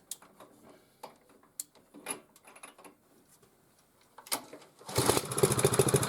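Scattered clicks and knocks of handling, then about five seconds in the MTD cultivator's small petrol engine catches and runs fast and steady. It fires after being primed with petrol poured into the cylinder through the spark-plug hole, having been hard to start.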